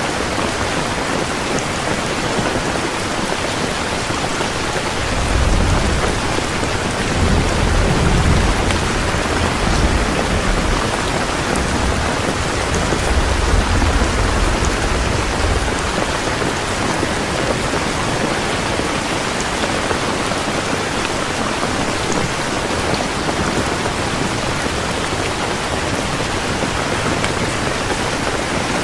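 Heavy rain pouring steadily, with a low rolling rumble of thunder from about five seconds in to about sixteen seconds in.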